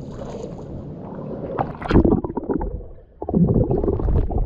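Pool water splashing and churning as a man and a golden retriever swim off, in irregular bursts about two seconds in and again near the end, with water washing over the waterline action camera.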